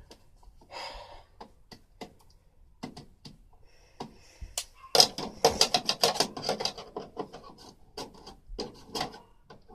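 Hand scraping and rubbing on an air conditioner's casing: scattered clicks and knocks, then a dense run of quick scraping strokes about five seconds in, easing to scattered strokes near the end.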